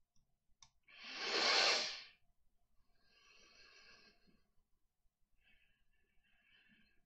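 A person breathing out heavily into a close microphone, a sigh about a second long, then two fainter breaths.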